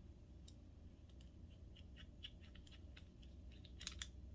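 Faint, scattered light clicks and ticks of small metal sewing-machine clutch parts and a small screwdriver being handled, with a quick pair of sharper clicks near the end.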